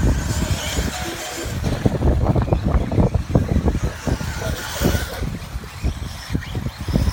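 Electric RC off-road buggies racing on a dirt track: faint motor whine and tyre noise over an irregular low rumble with many short knocks.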